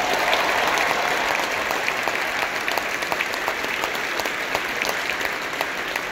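Large arena crowd applauding, a dense wash of clapping with sharp individual claps standing out close by.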